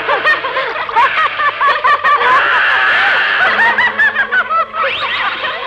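A man giggling and snickering mischievously, a quick run of short, high-pitched laughs.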